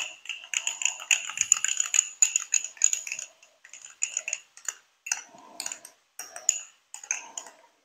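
A teaspoon clinking quickly against the sides of a small cup while stirring a cornflour-and-water slurry. There is a fast, steady run of clinks for about three seconds, then shorter bursts with pauses between them.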